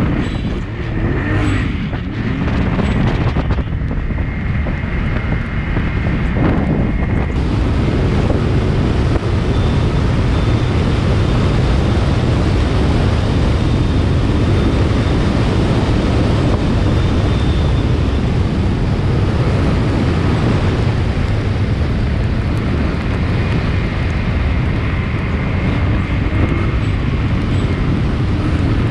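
Off-road vehicle's engine driving through dune sand on paddle tires, its pitch rising and falling in the first few seconds, then running steadily at speed to the end.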